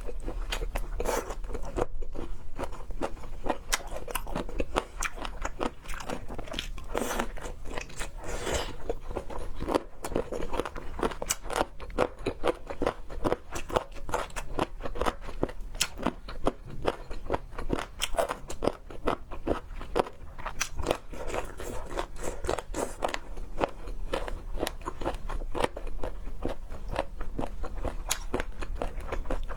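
A person chewing and crunching seafood, with a steady run of crisp, rapid crunches and mouth sounds.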